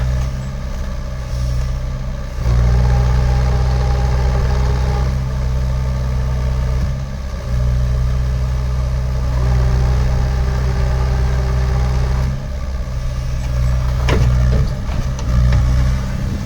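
JCB 48Z-1 mini excavator's diesel engine running steadily, getting louder for several seconds at a time as the machine works, with a sharp knock near the end.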